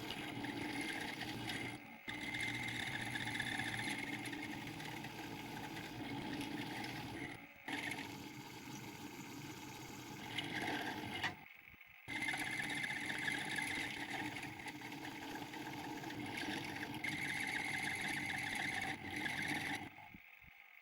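Small benchtop machine tool running steadily under its motor, heard in several short clips that cut off abruptly.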